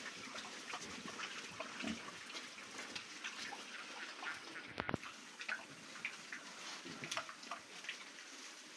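Pigs eating sweet potato tops: wet chewing and munching, leaves rustling and many small scattered clicks, with one sharper knock about five seconds in.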